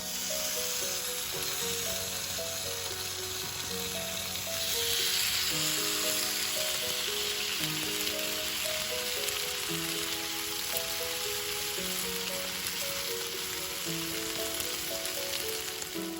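Steady sizzling, as of food frying, that grows louder about five seconds in, with background music playing a simple melody.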